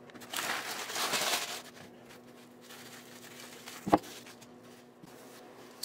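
Brown kraft packing paper rustling and crumpling for about a second and a half, then a single sharp knock about four seconds in as a heavy 20 oz silver bar is set down on a felt mat.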